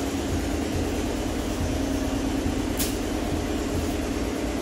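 A steady engine drone runs throughout. About three seconds in, a stick strikes a heap of dry pulse plants in a single faint thwack as the pods are beaten for threshing.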